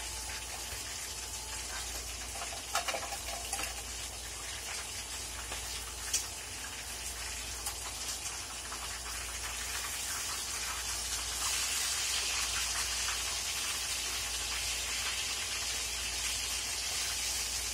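Food frying in a metal pan on a gas burner: a steady sizzle, with a few sharp clinks of the spatula against the pan in the first several seconds. The sizzle grows louder about two-thirds of the way through.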